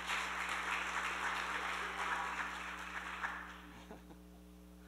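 Audience applauding, a dense patter of many hands that dies away about three and a half seconds in.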